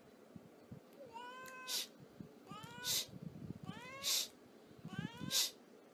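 A black-and-white domestic cat meowing four times in short calls, each rising in pitch.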